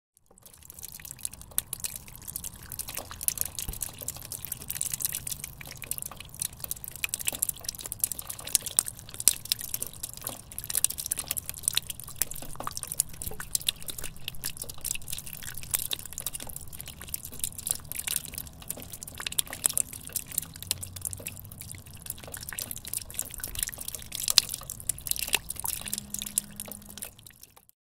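Water dripping down a drainpipe: a dense, irregular patter of sharp drips, fading in at the start and out near the end.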